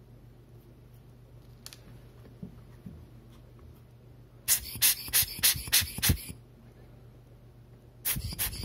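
Quick, scratchy scraping strokes of a hand tool across the bare surface of a Canon 350D CMOS image sensor, working off its colour filter array. There is a run of about seven strokes roughly four seconds in, and a second run near the end.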